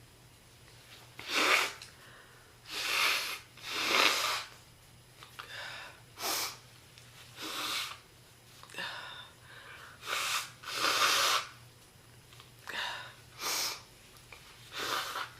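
A woman's deep, chesty smoker's cough: a dozen or so short coughs, unevenly spaced, with quieter breaths between them. The cough comes from a heavy smoker who has fallen ill.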